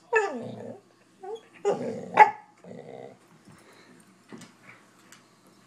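Corgi-mix dog giving attention-seeking vocalisations: a whining yelp that falls in pitch right at the start, then a couple of louder barks about two seconds in, the last one sharp, followed by faint, softer sounds as he noses into the blanket.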